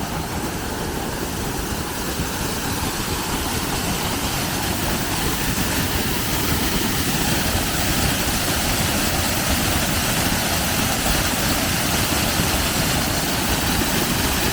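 Waterfall rushing: a steady, even roar of falling water, growing a little louder a few seconds in.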